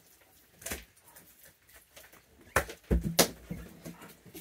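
A few sharp knocks and clatters: one under a second in, then a louder cluster with dull thuds around three seconds in.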